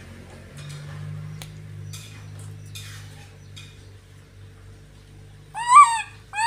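A young macaque giving a short, high rising-and-falling call near the end, with a second call starting just as it ends; before that only faint rustling over a low steady hum.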